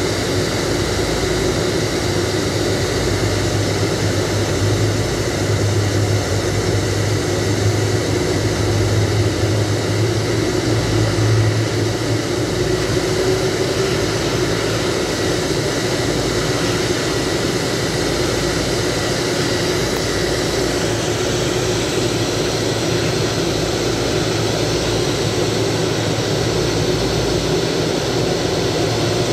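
Jet airliner running steadily on the apron: a loud, even rush with a steady whine over a low rumble.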